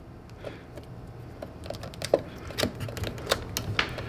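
Light, irregular clicks and ticks of a plastic twist-on wire nut being screwed by hand onto the dishwasher's power-cord wires, coming more often from about halfway through.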